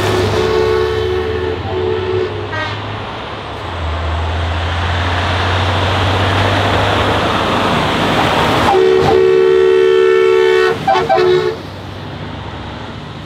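Heavy truck engines running past under a horn that sounds two notes together. It gives a long blast at the start and again about nine seconds in, each ending in a few short toots.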